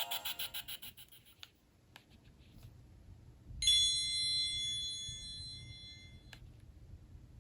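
Nokia N91 ringtones from the phone's speaker: the last notes of one tune fade out in the first second. About three and a half seconds in, a single bell-like chord of several high tones sounds for nearly three seconds, slowly fading, and is cut off with a click.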